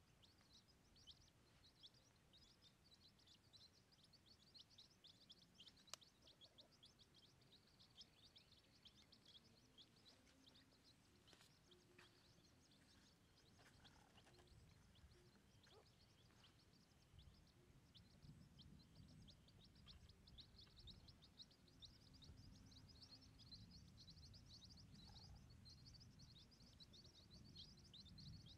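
Chicks peeping faintly: many short, high peeps overlapping in a rapid, irregular stream. A faint low rumble joins about halfway through.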